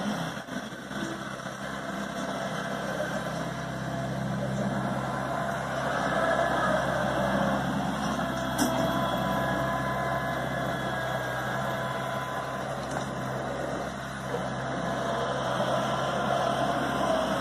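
Kubota B7800 compact tractor's diesel engine running steadily as the tractor drives over the snow.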